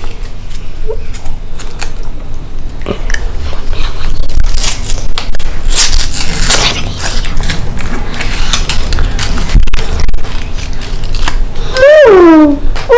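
Paper wrapper of a cone ice cream crinkling and tearing as it is peeled off by hand, in an uneven run of crackles. A child's voice cries out briefly near the end.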